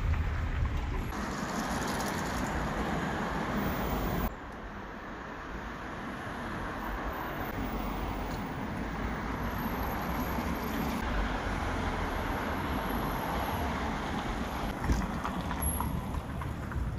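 City street traffic noise: a steady rumble and hiss of passing cars. It drops suddenly about four seconds in, then builds back up.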